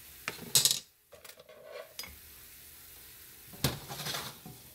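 A spoon clattering and scraping against a wok as diced chicken is scooped out, with two bursts of clatter about half a second in and near the end, over a faint sizzle from the pan.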